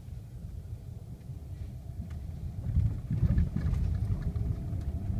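Low rumble of a car on the move, heard from inside the cabin, growing louder about three seconds in, with a few faint clicks.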